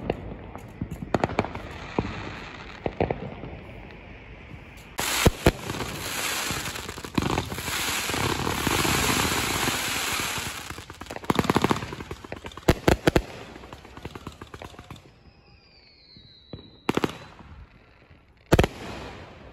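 Consumer fireworks going off close by: a rapid string of crackling pops, then sharp bangs and a long crackling hiss of sparks, more bangs, a whistle falling in pitch, and two last booms near the end.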